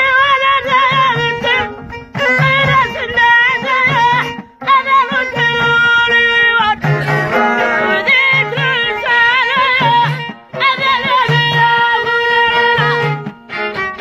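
Amazigh folk music: a violin held upright on the knee plays a sliding, ornamented melody with singing, over a low drum beat about once a second. The music breaks off briefly a few times and comes back in.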